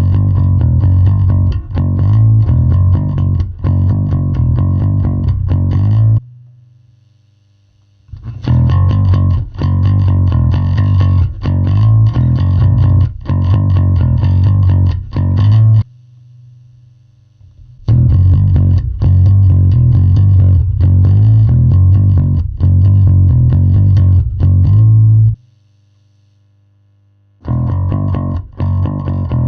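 Harley Benton BZ-5000 NT five-string electric bass guitar played in busy low riffs. It comes in three phrases of about six to eight seconds, each ending on a single low note left to ring and fade for a couple of seconds before the next phrase starts.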